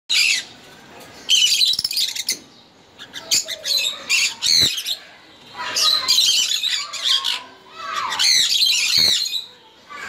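A mating pair of cockatiels calling in about five bursts of rapid, high-pitched chirping and squawking, with short pauses between bursts.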